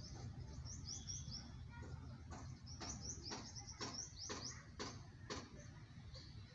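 Small birds chirping: quick clusters of short, high chirps, with a run of sharper calls about three a second in the middle, over a faint low rumble.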